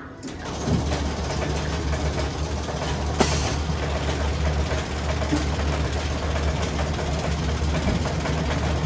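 Steady low mechanical hum of a kiddie coaster's ride drive as the small train starts to move, coming in about half a second in, with a single sharp click about three seconds in.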